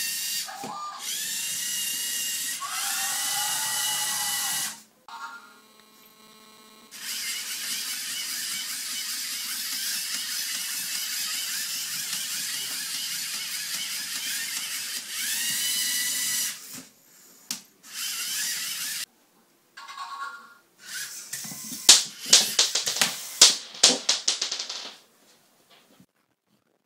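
LEGO Mindstorms EV3 Tracker robot's electric servo motors whining as the tracked robot drives and works its arm, the pitch rising as the motors spin up and falling as they stop, in several long runs. Near the end comes a quick series of sharp clicks and knocks, the loudest sounds.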